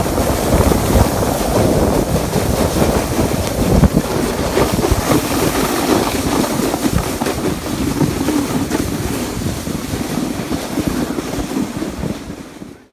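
A sled sliding fast down packed snow, a continuous scraping rush mixed with wind buffeting the phone's microphone, slowly getting quieter over the last few seconds.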